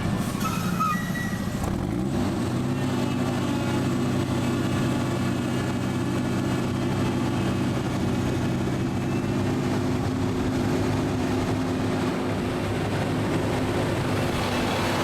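A ride vehicle's motor running steadily with a low hum that rises in pitch about two seconds in, then holds. A few short high chirps sound in the first two seconds.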